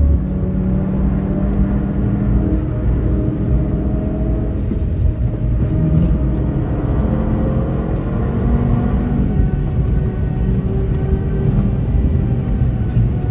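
Audi TT RS 8J's turbocharged 2.5-litre inline five-cylinder, heard from inside the cabin, running hard on track. Its pitch dips as the car brakes and then climbs again as it accelerates under full throttle.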